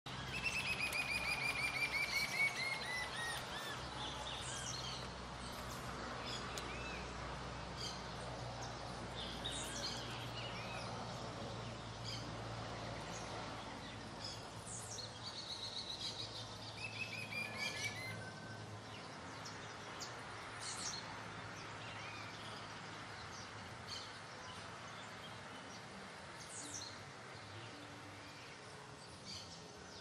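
Steady patter of light rain on leaves and pavement, with birds chirping. Twice, near the start and again just past the middle, a bird gives a fast trill that falls in pitch. A faint low hum lies underneath.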